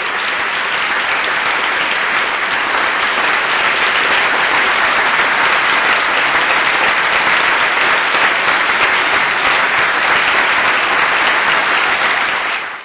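Audience applauding: a steady, dense clatter of many hands clapping at once, which stops abruptly at the very end.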